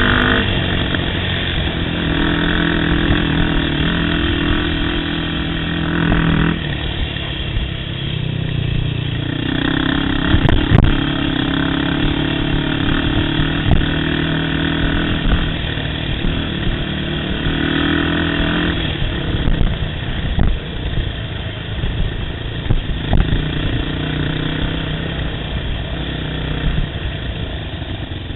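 Yamaha YFZ450 quad's single-cylinder engine running on the trail. The throttle rises and falls, with held stretches of a few seconds at a steady pitch, over a constant rough rumble from the terrain. There is a sharp knock about eleven seconds in.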